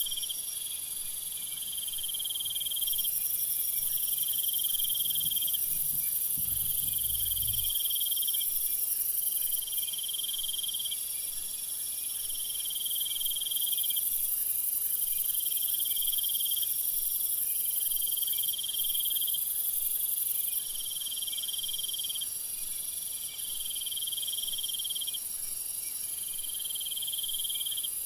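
Meadow insect chorus: crickets trilling in repeated phrases of about one and a half to two seconds with short breaks, over a steady, higher insect hiss.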